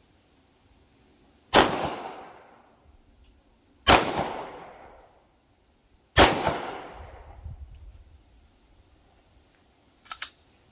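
Three 9mm pistol shots from a Canik METE SFx, spaced about two and a half seconds apart, each followed by an echo that fades over about a second. A couple of faint clicks near the end.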